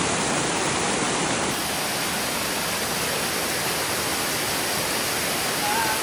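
Monsoon waterfall rushing, a steady even wash of falling water heard up close.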